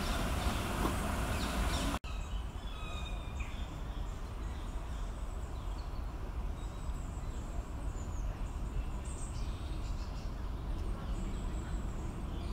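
Small birds chirping and calling now and then over a steady low rumble in parkland. A steady rushing noise fills the first two seconds, then cuts off sharply.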